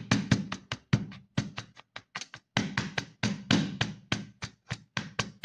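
Glass measuring cup tapped down again and again onto a biscuit-crumb base in a baking pan, pressing the crumbs flat: quick sharp taps, about five or six a second.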